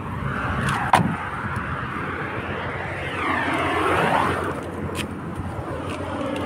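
A passing vehicle outdoors: a steady rush of motor and road noise that swells to a peak about midway and then eases off. There is a sharp knock about a second in.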